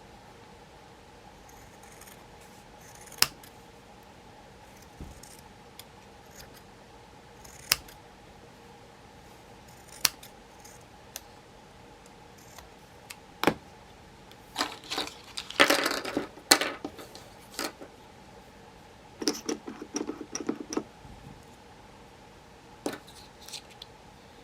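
Small hard nail-art tools and bottles being handled: scattered sharp clicks and taps, with two spells of rapid clattering in the second half, over a faint steady hum.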